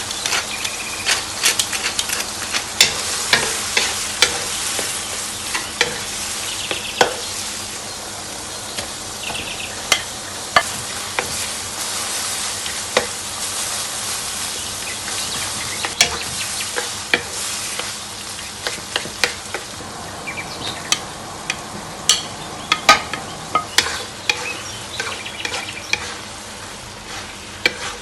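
Food sizzling in a hot pan while it is stirred, with frequent sharp clicks and scrapes of a utensil against the pan.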